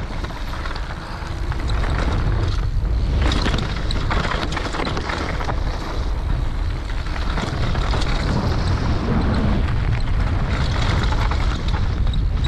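Wind rushing and buffeting over an action camera's microphone as a mountain bike rolls down a dirt trail, mixed with tyre noise on the dirt and occasional knocks and rattles from the bike over bumps. It grows louder over the first two seconds as the bike picks up speed, then stays steady.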